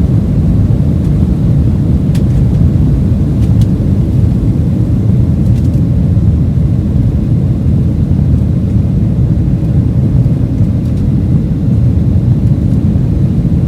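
Airliner cabin noise: a loud, steady low rumble of the jet engines and airflow heard from inside the plane.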